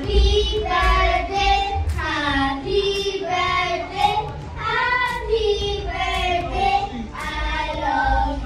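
A small group of children singing together, in held, sung phrases.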